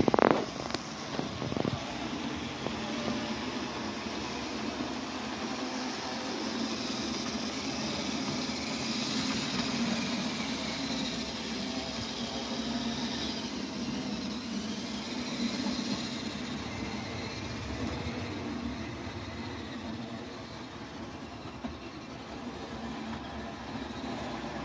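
HO scale model train running on the layout: a steady hum from the locomotive's motor and its wheels rolling on the track. A couple of short knocks come within the first two seconds, the first one the loudest sound.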